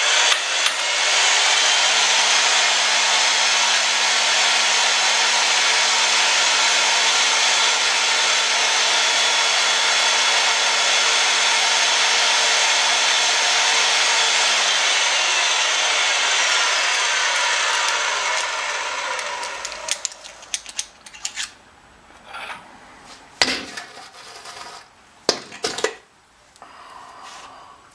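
Oster pipe threading machine running steadily with a constant motor hum while the die cuts threads on black steel gas pipe. About halfway through, the motor is switched off and winds down. Scattered metal knocks and clinks follow as the pipe is handled in the chuck.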